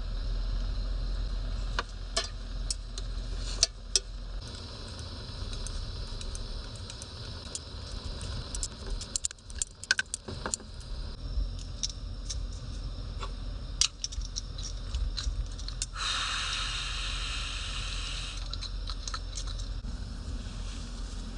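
Small metal items clinking and clicking as they are handled, scattered irregular clicks over a steady low rumble, with a brief hiss for about two seconds near the end.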